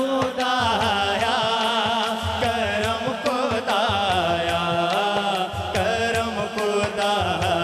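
Hamd, an Urdu devotional song, sung by a male voice with wavering vibrato over a steady percussion beat.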